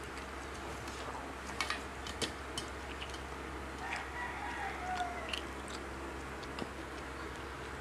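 A rooster crows once, about four seconds in, lasting just over a second. Short clicks and smacks of eating by hand come before it.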